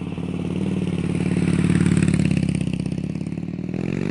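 Motorcycle engine running with a rapid, even pulse, its pitch rising near the end as it is revved.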